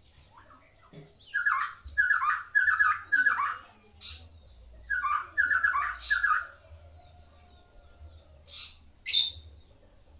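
White-rumped shama singing: a run of four loud, rapidly trilled phrases repeated one after another, a short pause, three more of the same, then two short sharp high notes near the end.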